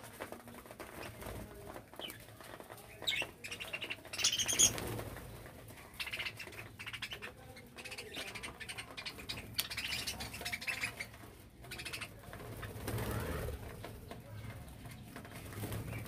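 A flock of budgerigars chattering and chirping in bursts that come and go, the loudest about four to five seconds in, with wings flapping as birds fly on and off the feeding dish.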